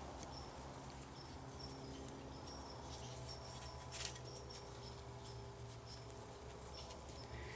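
Quiet background with faint, short high-pitched insect chirps repeating irregularly, and one soft click about four seconds in.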